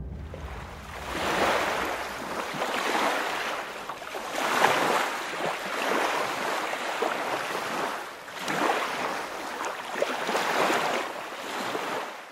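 Sea waves breaking and washing back, the surge swelling and falling away every couple of seconds, then cut off abruptly at the very end.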